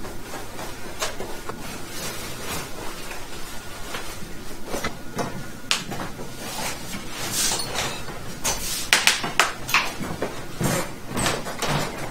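Rustling and handling noises over a steady background hiss, with a cluster of sharp clicks and knocks about eight to ten seconds in.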